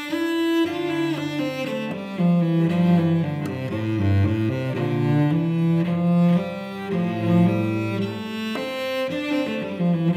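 Solo cello played with the bow, moving through a line of sustained and changing notes.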